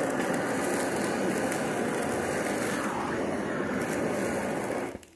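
Handheld butane blow torch on a gas canister burning with a steady hiss, played onto a bowl of paint, then shut off abruptly near the end.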